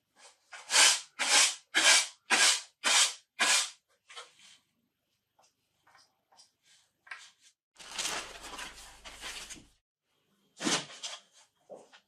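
Handwork on a wooden workbench: six quick, evenly spaced scraping strokes, about two a second, then scattered light taps and a rustle lasting about two seconds, and a knock near the end as a round wooden handle is laid on the bench.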